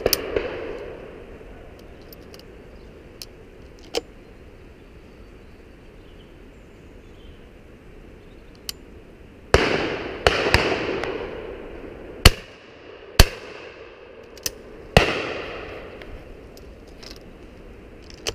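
Shotguns firing on a driven pheasant shoot: about a dozen scattered shots from guns near and far, most loud ones trailing off in long rolling echoes. The two loudest reports are sharp cracks about a second apart, a little past the middle.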